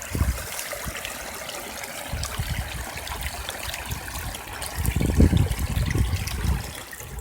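Rain-fed stream of runoff water trickling and flowing, with a low rumble rising about five seconds in and fading again near the end.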